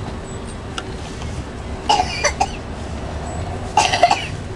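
A person's voice: two short bursts about two seconds apart, over a steady low background hum.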